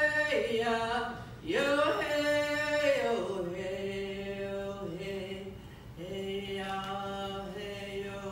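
A woman singing a Shinnecock honoring song solo and unaccompanied, in long held notes. The notes fall in steps, with a swoop up about one and a half seconds in.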